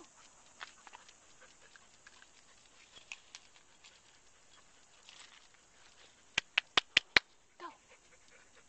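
Dogs' claws clicking on a concrete walkway: faint pattering, then a quick run of five sharp, loud clicks about six and a half seconds in.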